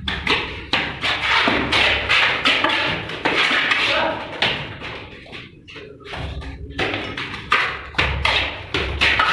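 Construction-site noise from plastering work: irregular knocks and taps, with a low rumble for the first second or so and again in the last few seconds.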